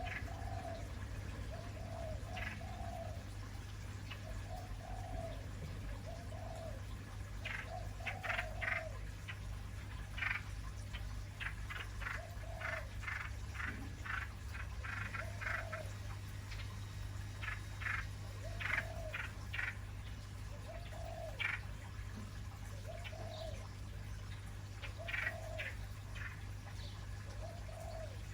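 Birds calling: a short low call repeating about every two seconds, with clusters of quick high chirps through the middle stretch. A steady low hum runs underneath.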